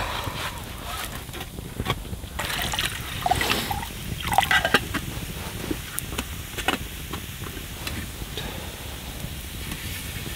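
Water sloshing and trickling in a metal camping pot as it is handled, over the short clicks of a crackling campfire.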